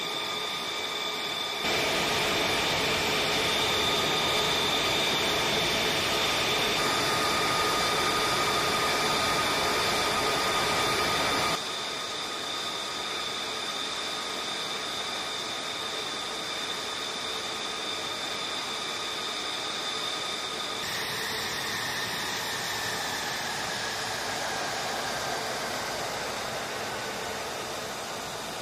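F-35A Lightning II's Pratt & Whitney F135 turbofan running at ground idle: a steady high whine over a rush of noise. The level jumps abruptly at about 2 and 12 seconds in. In the last third one whine falls slowly in pitch.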